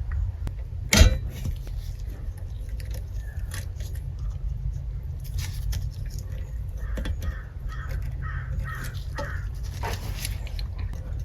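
Wire stripper working on thin electrical wires: scattered clicks and snips, the sharpest about a second in. Around seven seconds in comes a quick run of six short, evenly spaced sounds, over a low steady hum.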